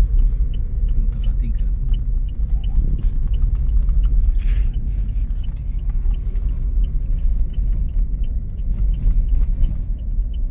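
Steady low road rumble heard inside a car cabin as it drives over an unpaved dirt road, with a brief hiss about halfway through.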